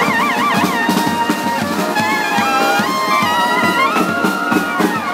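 Brass band playing: trumpets and trombones over a drum beat, with a wide wavering shake on a high trumpet note just under a second long at the start.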